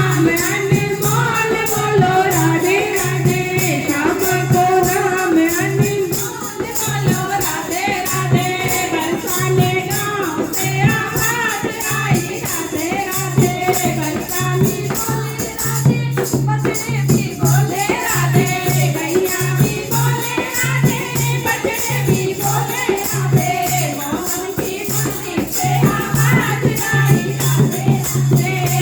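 Devotional bhajan music: a singing voice over a steady, repeating percussion rhythm with jingling strokes.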